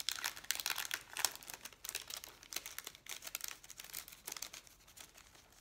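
Packaging and sheets of rainbow window-decal stickers crinkling and rustling as they are handled and pulled out, in a dense run of crackles that thins out near the end.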